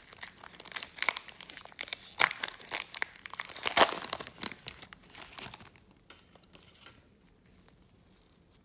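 Crinkly wrapper of a Topps Chrome trading-card pack torn open and crumpled by gloved hands: a dense run of sharp crackles and rustles, loudest about four seconds in, dying away after about six seconds as the cards come out.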